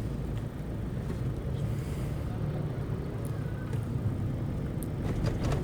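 Steady low rumble inside the cabin of a Toyota Fortuner on the move: its 2KD-FTV 2.5-litre four-cylinder turbodiesel running with road noise, with a few faint clicks near the end.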